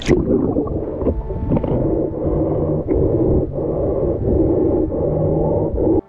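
A splash as a waterproof action camera plunges into the river, then muffled underwater churning and bubbling from someone swimming, pulsing a little under twice a second.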